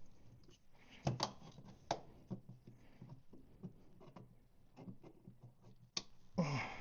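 Light, irregular clicks and taps from hands handling small parts and tools, with a few sharper taps about a second in and near the end.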